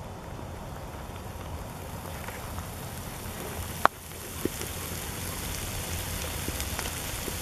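Frying pan of penne in tomato sauce with sausage sizzling on a grill over charcoal: a steady hiss with faint ticks, a little louder after a single sharp click about four seconds in.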